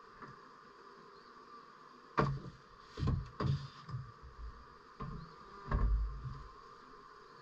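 Hive frames and hive parts being handled: a series of knocks and thumps, loudest about two seconds in and again near six seconds, over a faint steady hum.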